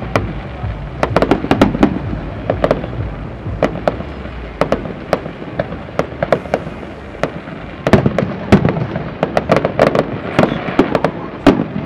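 Fireworks display: aerial shells bursting in a rapid, irregular series of sharp bangs and crackles, densest about a second in and again from about eight seconds on.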